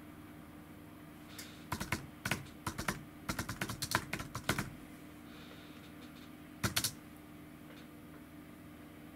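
Typing on a computer keyboard: a run of quick, light key clicks lasting about three seconds, then a short burst of clicks a couple of seconds later.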